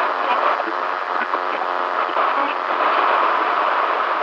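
Steady static and buzzing interference of a badly received broadcast, with scattered crackles. It sounds thin, cut off at the low and high ends, like a small radio speaker.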